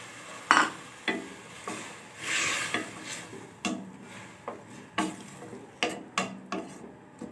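Slotted spatula stirring potatoes, peas and tomatoes in a metal pan, scraping and knocking against the pan a dozen or so times at uneven intervals, over a light sizzle.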